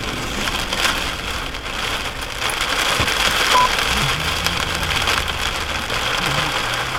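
Steady hiss of noise heard over a two-way radio, cut off sharp above the radio's voice band, ending abruptly near the end as the next transmission comes in.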